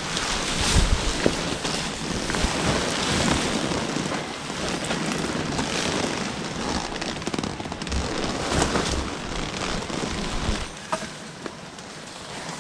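Rustling and crackling of a pop-up tent's nylon fabric as the spring-pole tent unfolds and is spread out, with wind buffeting the microphone in gusts. It eases off and gets quieter near the end.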